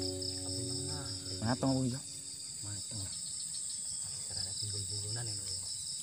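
Steady, shrill chorus of insects, a high trilling drone with a fast pulse, with a short murmur of voices about a second and a half in.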